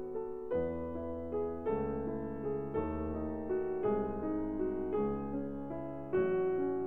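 Piano music, with new chords struck about once a second.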